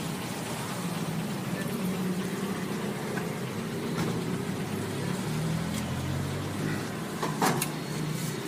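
Road traffic: a low, steady engine hum, with one short, sharp clatter about seven seconds in.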